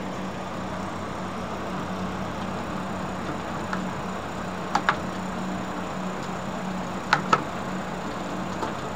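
Steady machine hum with a low drone, and two quick pairs of light clinks, about five and seven seconds in, from a hand and bangles knocking against a steel bowl while mashed roasted eggplant is mixed by hand.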